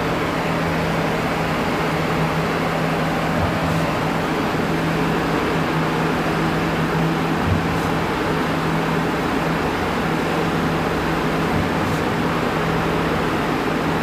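Steady machine drone with a constant low hum underneath, unchanging throughout.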